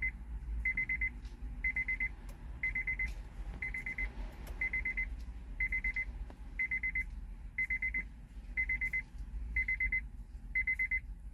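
Electronic beeper sounding a high, rapid cluster of beeps about half a second long, repeating about once a second.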